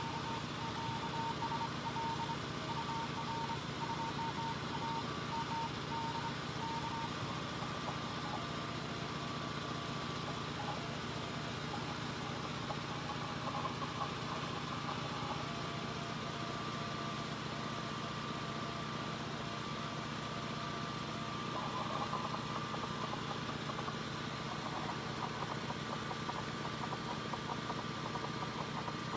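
Steady mechanical drone like a running engine or motor. During the first seven seconds a ham radio plays a string of short Morse code beeps at one pitch.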